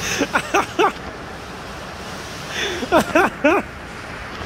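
A person laughing in two short bursts, each a quick run of falling 'ha' sounds, over steady rain and wind noise.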